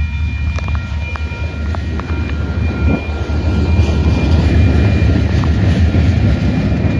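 Freight train of covered hopper cars rolling past: a heavy steady rumble with scattered clicks of the wheels and faint, thin, steady high squeals. A hiss of rain and wind grows about halfway through.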